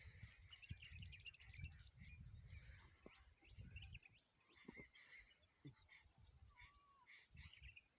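Faint small birds chirping and twittering, with a fast trill lasting about a second and a half near the start, over an uneven low rumble.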